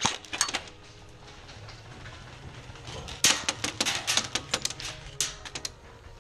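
Airsoft guns firing: a few quick shots near the start, then a longer, uneven string of rapid shots from about three seconds in until near the end.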